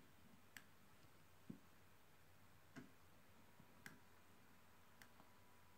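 Near silence broken by about five faint, separate clicks roughly a second apart, as a computer mouse is clicked to page through pictures.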